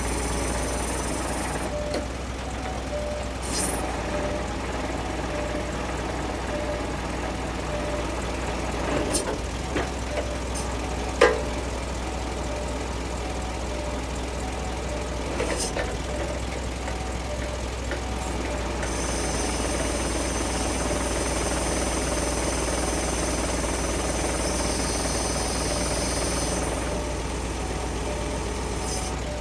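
Truck diesel engine running steadily to power the hydraulics of a HIAB loader crane while the boom is raised and lowered. A few sharp clunks sound between about nine and sixteen seconds in, the loudest near eleven seconds, and a high hiss comes in about two-thirds of the way through for several seconds.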